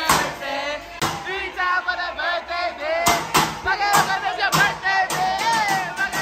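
A table of diners singing and shouting together in high voices, with sharp clacks every half second or so.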